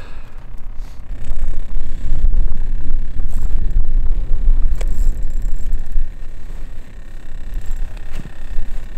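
Wind buffeting the microphone on open ice: a low rumble that gusts up about a second in and eases after about six seconds, with a faint click near the middle.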